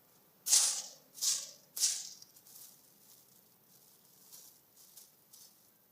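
Plastic crinkling as a kitten plays with it: three loud crackles in the first two seconds, then faint scattered rustling.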